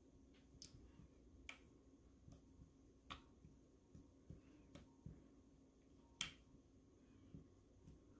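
Faint sharp clicks and pops from slime being stretched and poked, about half a dozen at irregular intervals, the loudest about six seconds in.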